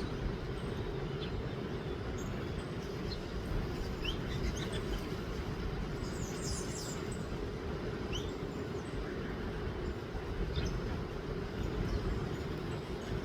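Small birds giving short, scattered high chirps, a quick cluster of them about halfway through, over a steady low rumble.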